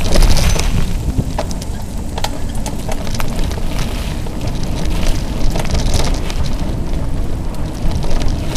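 Mountain bike riding fast on dirt singletrack: wind buffeting the camera microphone as a steady low rumble, with scattered clicks and rattles from the bike and tyres on the trail.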